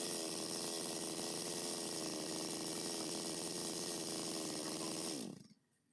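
Stihl MS 250 two-stroke chainsaw running steadily, then its pitch drops and the engine stops about five seconds in.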